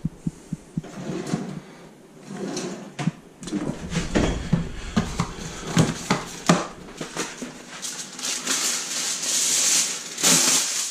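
Knocks and clatter from items being handled on a kitchen worktop and in a cupboard. Near the end, a crinkling hiss lasts about two seconds as aluminium kitchen foil is pulled off its roll.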